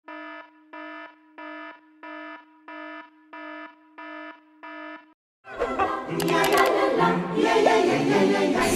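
An electronic alarm-like beep, one steady pitched tone repeated eight times about one and a half times a second, stops about five seconds in. Half a second later much louder music with singing begins.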